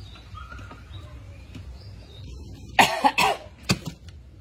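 A man coughing: a quick run of three loud coughs near the end, from a throat made itchy by eating raw pineapple.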